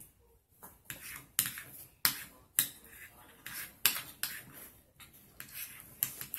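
Metal spoons clinking and scraping against ceramic bowls as two children stir a thick slime mixture, in irregular sharp clicks a few times a second.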